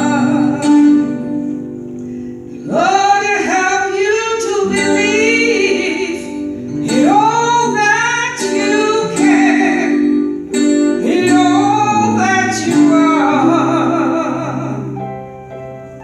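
A woman singing a solo with instrumental accompaniment, in sung phrases separated by short pauses over steady held chords.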